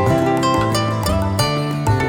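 Background music with plucked-string notes changing every half second or so.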